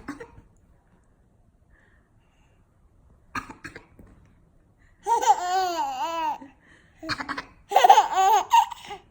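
A four-month-old baby's high-pitched laughter, coming in two long bouts, each just after a short fake cough from an adult.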